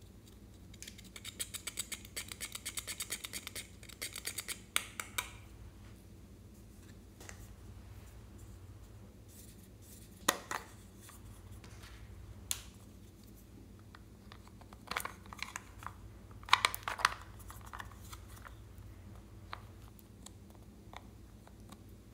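Small metal scissor blades scraping and digging pressed blush powder out of a plastic compact, a quick run of scratchy strokes over the first few seconds. After that, scattered clicks and taps of plastic makeup cases being handled, with a short cluster of them a little past the middle.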